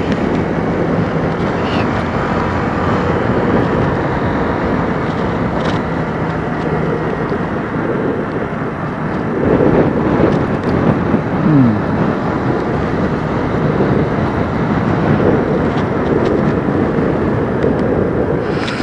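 Kawasaki KLX125 motorcycle's single-cylinder engine running on the move, mixed with steady wind noise on the microphone. About eleven seconds in, one short note falls in pitch.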